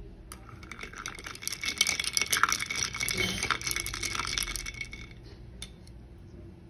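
Ice cubes clinking and rattling against the glass of a mason jar as iced coffee is stirred: a quick, dense run of clinks that is loudest in the middle and dies away near the end.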